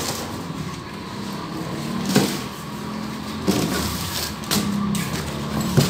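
Handling noises: a few short knocks and rustles as the brush cutter and its packaging are moved, over a steady low background hum.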